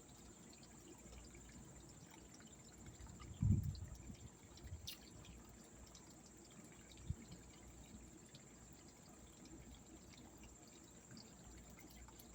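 Faint, steady pouring and trickling of water from a garden pond's waterfall running off the freshly backwashed filter. A low thump comes about three and a half seconds in, and a short click comes near the middle.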